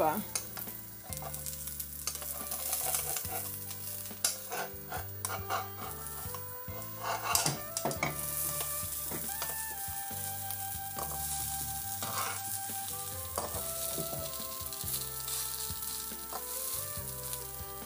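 Pancake batter sizzling as it fries in butter in a nonstick frying pan on low heat. A slotted metal spatula clicks and scrapes against the pan as the pancake is flipped and pressed down.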